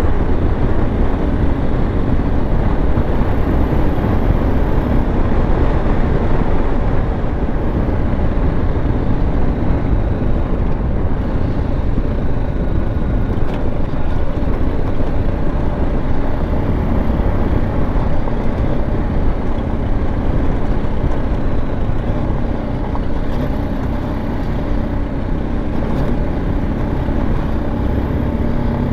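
Single-cylinder BMW G 310 GS motorcycle engine running steadily while riding a gravel track, mixed with wind and road noise.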